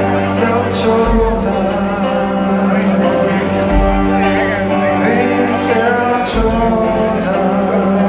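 Rock band playing live, with electric guitars, bass guitar, drums and a male lead singer, heard from the audience in a large hall.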